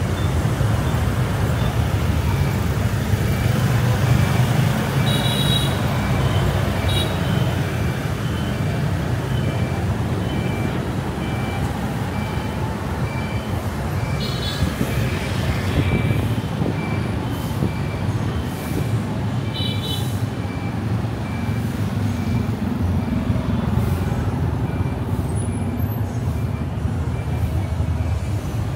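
Car driving through city traffic at night, with a steady low rumble of engine and road noise. A faint high beep repeats at an even pace, and a few brief high tones from the surrounding traffic cut through.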